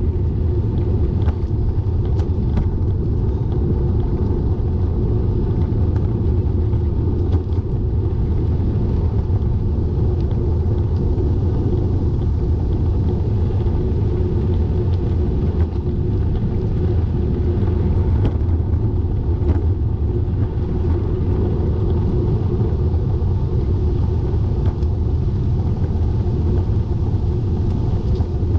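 Steady low rumble of wind on the microphone and road noise while riding a bicycle, with a few faint clicks and ticks.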